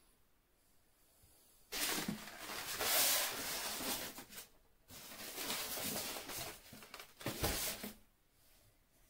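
Scraping and rubbing as a plastic-cased printer is handled in its polystyrene foam packing, in two stretches starting about two seconds in, with a knock near the end as it is set down in the foam.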